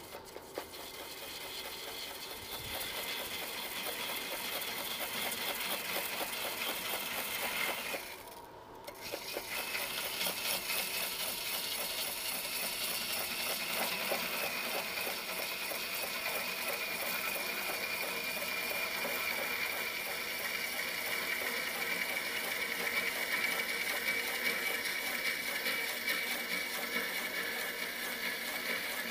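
A turning tool cutting a large wooden vessel spinning on a lathe: a steady rasping hiss with a fast, even ticking running through it. The cut breaks off briefly about eight seconds in, then carries on.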